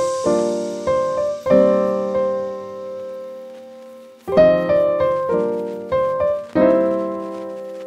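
Slow piano music: chords struck a few at a time, each left to ring and fade, with a long ringing pause in the middle and the last chord dying away near the end.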